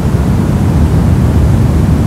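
Steady soft noise, deep rather than hissy, with most of its weight in the low end and no tone or rhythm, of the pink-noise kind used for sleep and relaxation.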